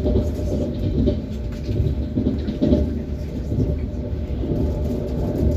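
ES1P Lastochka electric train running on the rails, its wheels giving a steady low rumble with irregular knocks.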